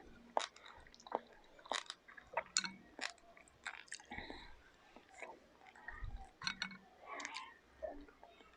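Chewing and biting on mango gulaman salad, soft gelatin cubes and fruit, heard as faint, irregular wet mouth clicks and smacks.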